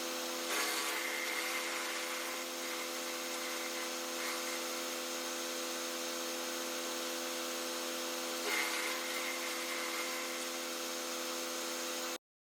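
Wood chipper driven by an LS XR3135 compact diesel tractor, running at steady speed while chipping brush. Twice, about half a second in and again about eight and a half seconds in, there is a louder, noisier grinding surge as branches go through. The sound cuts off suddenly just before the end.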